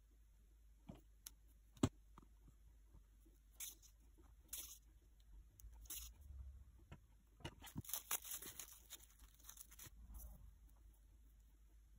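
Faint handling sounds of modelling clay being worked by hand on a cutting mat: a sharp tap about two seconds in, then scattered light rustles and crinkles of plastic cling wrap, thickest a few seconds before the end.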